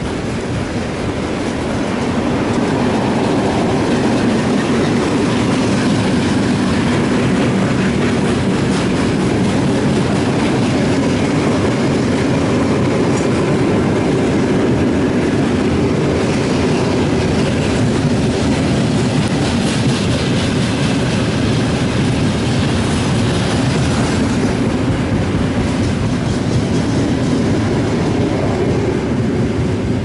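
A train passing on the railway beneath the footbridge, its wagons running on the rails in a steady, loud rumble that builds over the first couple of seconds and eases slightly near the end.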